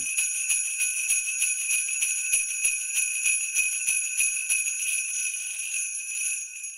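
Sleigh bells jingling, shaken in a steady rhythm of about four shakes a second, fading out near the end.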